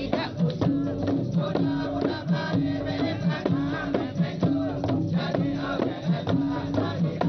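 Traditional Malay percussion ensemble playing: barrel drums and frame drums beat a busy rhythm under a held low note that comes and goes, with a group chanting over it.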